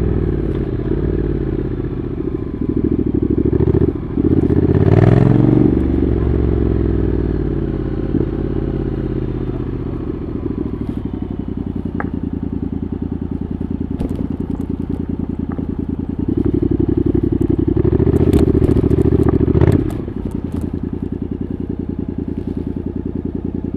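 Honda NC750X parallel-twin engine through a Hurric Pro 2 aftermarket exhaust, heard onboard. Its revs fall off the throttle at first. It takes two short bursts of throttle a few seconds in, and then runs at low, steady revs. It pulls harder again for a few seconds later on and drops back to a steady low running near the end, with a few scattered clicks along the way.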